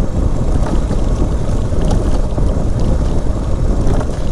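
Motorcycle running under load while climbing a steep dirt road, with heavy wind rumble on the microphone.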